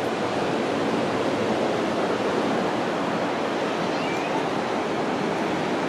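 Steady rush of ocean surf mixed with wind blowing across the microphone.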